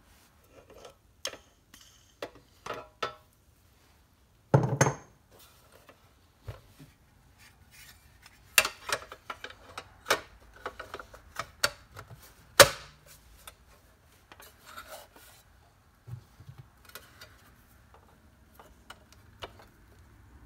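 Pressed-steel toy truck parts being handled and fitted together, with intermittent metal clicks, clinks and knocks. The loudest moments are a rattle about four and a half seconds in and a sharp clank about twelve and a half seconds in.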